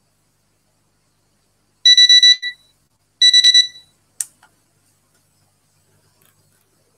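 Digital countdown timer's alarm reaching zero: two short bursts of rapid high-pitched beeps about a second apart, followed by a single click as its button is pressed to stop it.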